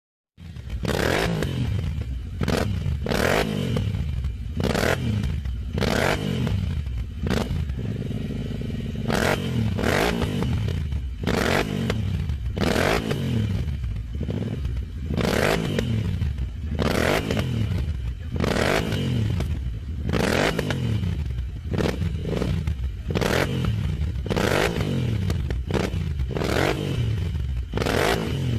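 Royal Enfield Interceptor 650's parallel-twin engine revved over and over through its exhaust, the pitch rising and falling with each throttle blip, roughly one every second or two. It starts suddenly just after the beginning.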